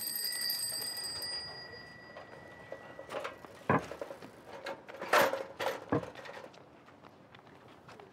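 A bell rings on in rapid, repeated strikes and fades out in the first second or two. It is followed by a few sharp knocks and clatters, the loudest about four and five seconds in.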